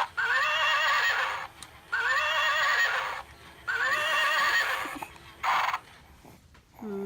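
Toy horse's built-in sound effect: a recorded horse whinny played three times in a row with identical wavering pitch, each about a second and a half long, followed by a shorter burst after about five seconds.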